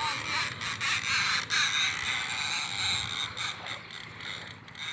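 Fishing reel ratcheting and clicking under load from a hooked fish, with a few sharper clicks scattered through.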